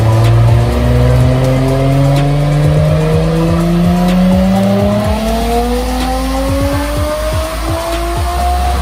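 Turbocharged Nissan RB25DET straight-six on E85 making a wide-open-throttle dyno pull, its pitch climbing slowly and steadily through one long gear until it stops suddenly near the end.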